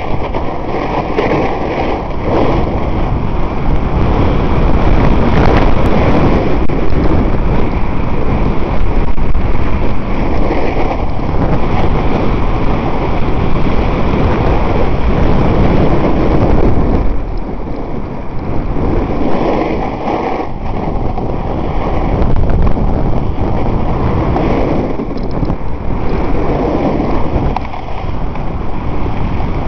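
Wind buffeting the microphone and a snowboard scraping over snow during a fast downhill run, a steady rushing noise that eases for a couple of seconds about two-thirds of the way through.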